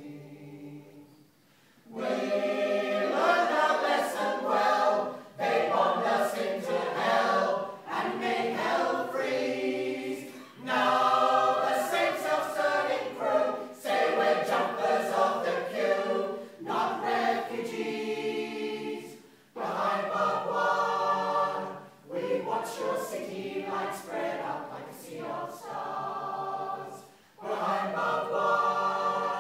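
A choir singing. After a short pause it comes in about two seconds in and sings in phrases with brief breaks between them.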